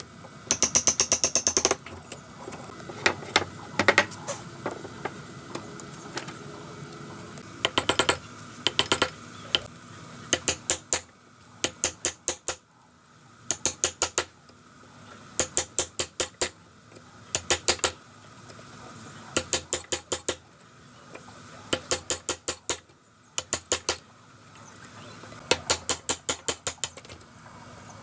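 A wood chisel driven into hardwood by rapid hammer taps to chop out a mortise: quick runs of about five to ten sharp blows, roughly ten a second, with short pauses between runs.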